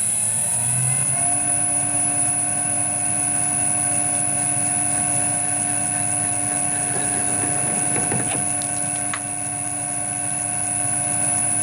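Metal lathe running: its motor whine rises in pitch over the first second or so as the spindle comes up to speed, then holds steady. Between about seven and nine seconds in there is a spell of scraping cutting noise as the parting-off tool cuts into the 17 mm hex bar.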